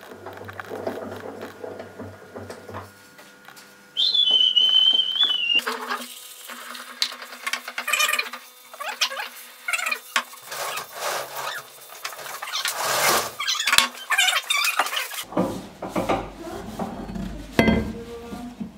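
Handling and workshop noises from an axe on a wooden workbench: irregular clinks, knocks and rubbing. A high wavering tone sounds for about a second and a half, about four seconds in.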